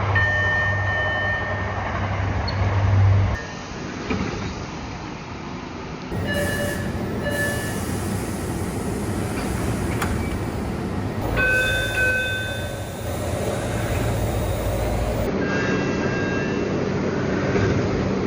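MBTA Orange Line subway car door chimes: several short electronic chimes, one after another, over the steady hum and rumble of the train, with abrupt changes in the background between them.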